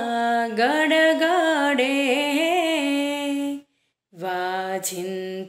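A woman's voice singing a Gujarati devotional kirtan solo, drawing out long wavering notes on one word. It breaks off briefly a little past halfway and comes back on a lower note.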